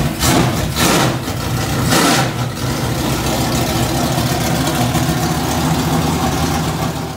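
Adams-built V8 race engine with a four-barrel carburetor, running through open headers: a few quick snaps on the throttle in the first two seconds or so, then a steady idle.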